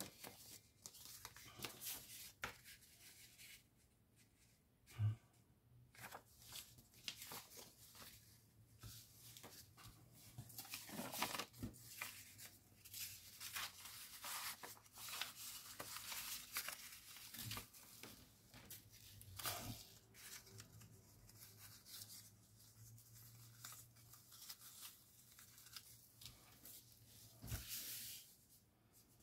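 Paper being handled close up: uneven bursts of rustling, tearing and crinkling, with one sharp thump about five seconds in.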